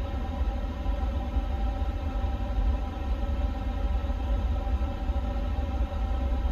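Steady airliner cockpit background noise: a low rumble under a constant hum of several steady tones, typical of the air-conditioning and equipment cooling fans running in a parked aircraft.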